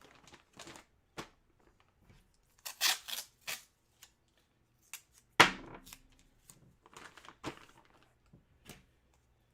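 Plastic packaging crinkling and tearing in short scattered bursts as a hockey jersey is unpacked, with the loudest rip about five and a half seconds in.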